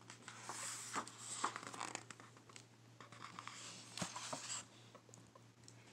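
Paper pages of a picture book rustling and crinkling as they are turned and handled, mostly in the first two seconds and again briefly about four seconds in, over a faint steady hum.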